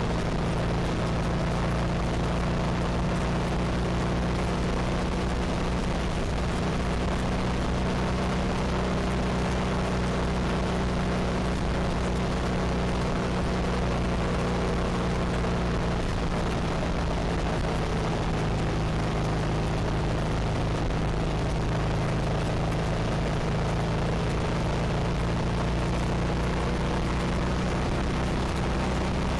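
Harley-Davidson Sportster 1200's air-cooled V-twin engine running steadily at cruising speed, with a constant rush of wind and road noise.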